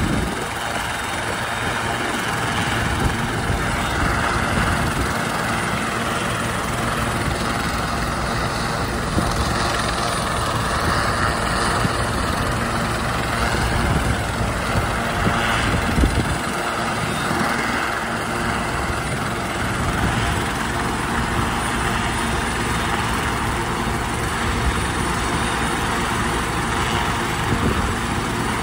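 Medical helicopter's turbine engines and rotors running steadily while it sits on the helipad.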